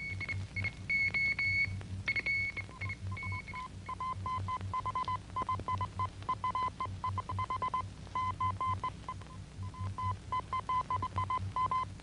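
Film soundtrack music: a pulsing low beat under a high held note, then a single high note repeated rapidly in quick runs.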